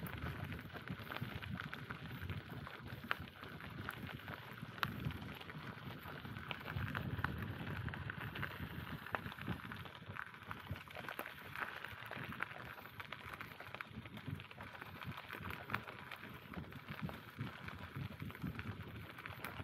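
Bicycle being ridden: steady rolling noise from the tyres, with a low rumble and many small irregular clicks and rattles.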